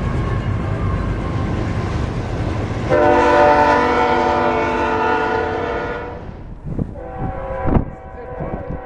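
A locomotive's Nathan K5HL five-chime air horn blows one long chord from about three seconds in to about six seconds, over the low rumble of the moving train. After that the horn fades and wheels knock over rail joints.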